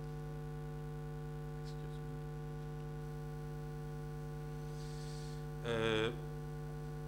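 Steady electrical mains hum from the microphone and sound system. About six seconds in there is a brief voiced sound from the man at the microphone.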